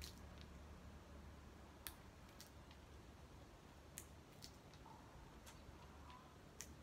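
Sharp, small clicks or snips from hand work, about one a second and irregular, over a faint low hum.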